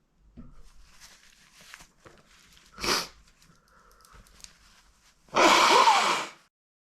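A man with a runny nose sneezing and blowing his nose into a handkerchief: faint sniffly breathing, a short sharp burst about three seconds in, then a loud, wet blast lasting about a second near the end.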